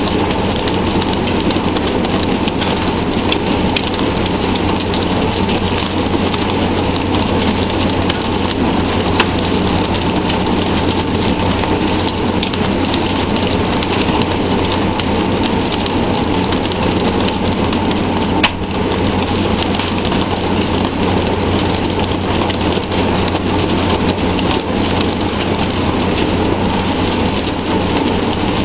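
Steady, loud rushing of water around a pole-and-line tuna fishing boat under way, over a low steady drone from the vessel, with scattered small clicks and knocks.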